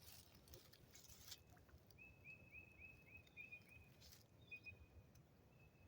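Faint outdoor ambience with a bird calling a quick run of short, high, repeated chirps, about four a second, partway through. Brief soft rustles come near the start and again about four seconds in.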